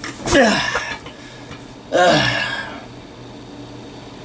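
A man's voice: two short wordless vocal sounds about two seconds apart, each falling in pitch, like grunts or groans.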